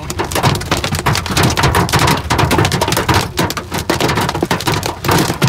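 Hail and rain hitting the car's roof and windshield, heard from inside the cabin: a loud, dense, irregular patter of hits over the low rumble of the car driving.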